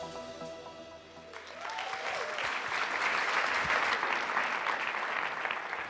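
The last notes of intro music fade out, then an audience applauds, starting about a second and a half in.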